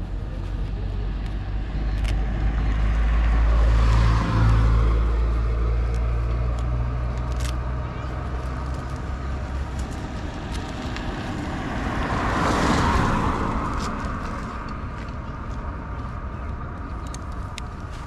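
Jawa Classic's single-cylinder engine and exhaust running on the move, loudest about four seconds in, its low note fading away around the middle. A brief rush of noise comes about two-thirds of the way through.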